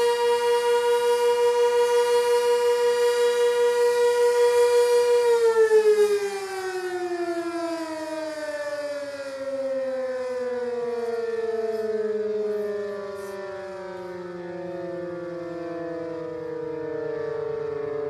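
Sentry 16V1T-B outdoor warning siren sounding a steady high tone that pulses in loudness. About five seconds in it begins to wind down, its pitch falling slowly and steadily as the rotor coasts to a stop at the end of the test.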